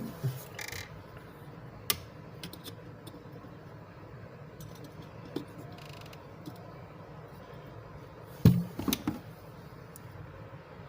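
Small clicks and taps from screws and a flat-blade screwdriver being handled while fitting a magnetic cabinet catch, with a louder cluster of sharp knocks about eight and a half seconds in, over a low steady hum.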